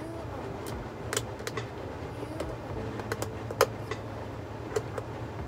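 Light clicks and taps of a folding shoebox's panels being handled and fitted together: several sharp ones at irregular intervals, the loudest about three and a half seconds in. Under them runs the steady hum of an air cooler and air conditioner.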